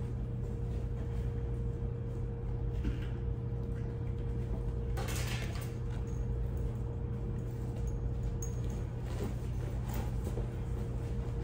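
Rustling and handling of a fabric backpack as items are packed into it, with the clearest rustle about five seconds in, over a steady low hum.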